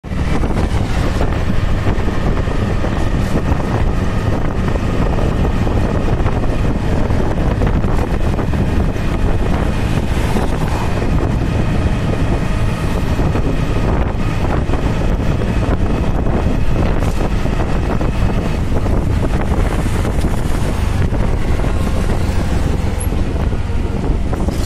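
Wind buffeting the microphone of a moving camera: a loud, steady low rumble, with faint vehicle noise in it.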